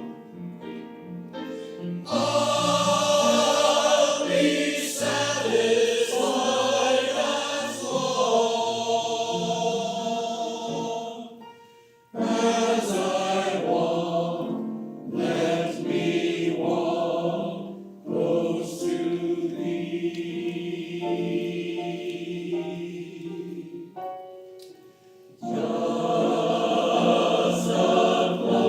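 A choir singing a hymn in sustained phrases, with short breaks between phrases about twelve seconds in and again near the end.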